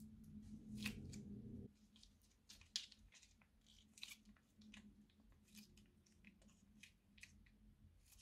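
Slime squeezed out of a plastic piping bag: a low squelch for about the first second and a half that stops abruptly, then scattered faint crackles and pops as the bag is wrung out.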